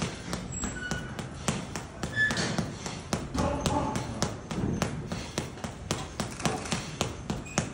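Boxing gloves striking a water-filled aqua punching bag in quick combinations: sharp slapping thuds landing several times a second.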